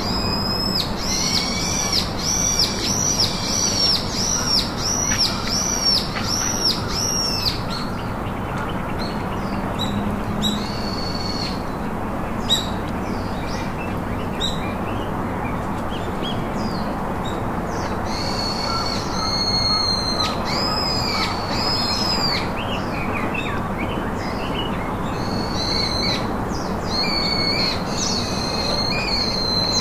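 Wild bird calling: a run of short, high, arched notes, about one and a half a second, for the first several seconds, then shorter runs of the same notes later on, over a steady hiss of background noise.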